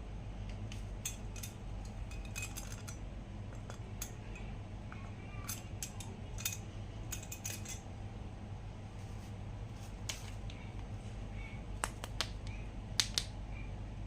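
Scattered light clicks and taps of hard plastic toy animal figures being handled and set down, over a steady low hum. The sharpest taps come near the end.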